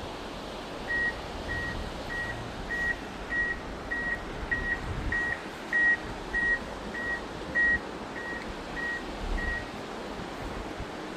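Vehicle reversing beeper sounding a steady run of about fifteen short, high, single-pitch beeps, a little under two a second, starting about a second in and stopping near the end, over a steady background hiss.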